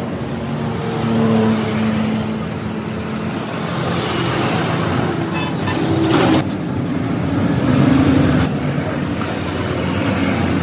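Motor vehicle engine noise and road traffic, a steady hum with a short burst of higher noise about six seconds in.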